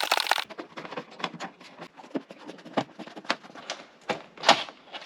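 A brief loud noisy burst, then irregular small clicks and knocks as hand tools and car body parts are handled.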